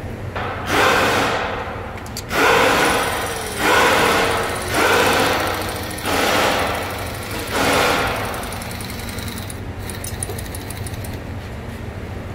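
A power tool run in six short bursts, each about a second long, starting sharply and tailing off, over a steady low hum.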